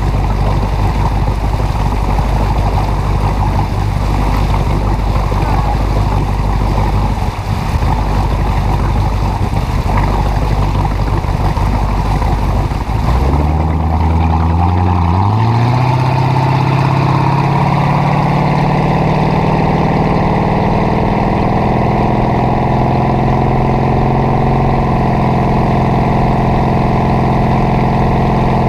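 A 1976 ski boat's engine runs at low speed under wind and water rush, then is opened up about 13 seconds in. Its pitch climbs over a couple of seconds and then holds steady at higher revs as the boat gets up to speed.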